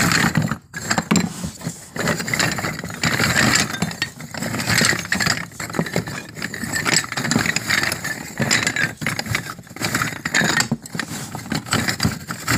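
Small unglazed clay cups rattling, scraping and clinking against one another as a hand stirs through a box heaped with them: a continuous, uneven clatter.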